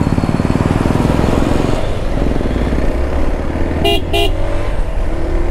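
Hero XPulse 200 4V's single-cylinder engine running on the road, its firing beat plain for the first two seconds. About four seconds in, a horn gives two short toots.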